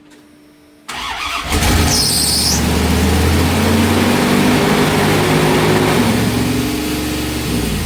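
1993 Dodge Ram D150's Magnum 5.9 (360) V8 cranking briefly about a second in and catching, with a short high squeal as it fires, then running at a fast, high idle that starts to fall away near the end. The idle is racing because of a large vacuum leak: a hole at the back of the intake where the EGR tube was damaged lets it pull in too much air.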